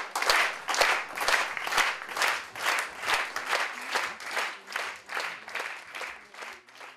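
Theatre audience clapping in unison, a steady rhythmic applause of about two claps a second that grows quieter toward the end.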